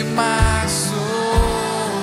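Live worship band music: acoustic guitar and drum kit with a kick drum beat about once a second under long held notes.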